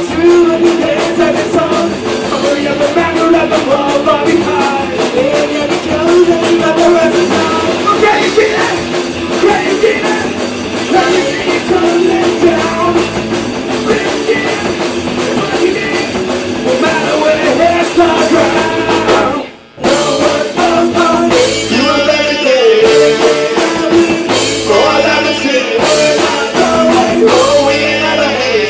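Punk rock band playing a fast song with sung vocals over drums and guitars. The band drops out for a split second about two-thirds of the way through, then comes straight back in.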